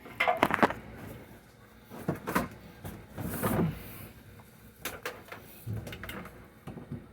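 Scattered clicks, knocks and short rustles of the Kirby upright vacuum being handled; its motor is not running.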